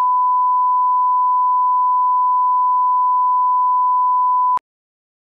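Standard line-up test tone played with colour bars: a single steady pure tone at the thousand-cycle reference pitch, which cuts off abruptly with a click near the end.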